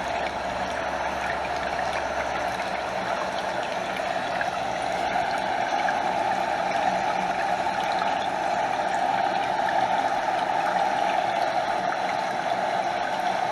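Stream water flowing in a steady, continuous rush, with water lapping close by over a small waterfall's cascade. It grows a little louder about a third of the way in.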